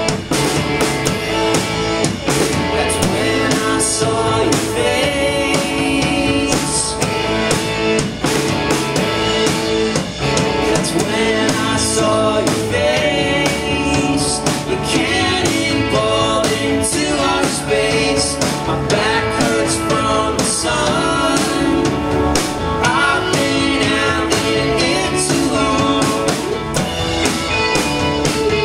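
Live rock band playing loudly, with electric guitars, bass, a drum kit and a singer's voice.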